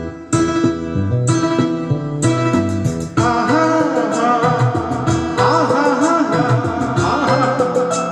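Karaoke backing track playing, with a man starting to sing over it into a microphone about three seconds in.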